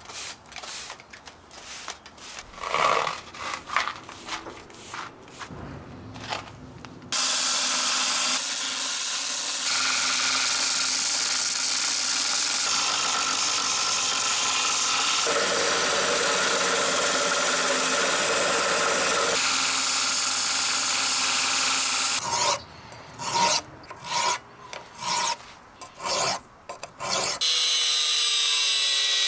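A stiff broom sweeping grit and metal filings off paving tiles in short, irregular strokes. Then a 2x42 belt grinder runs steadily for about fifteen seconds, grinding a steel handle tube, and its pitch shifts as the pressure changes. After a few seconds of short, irregular scraping strokes, an angle grinder starts up near the end, its disc running on the steel guard ring.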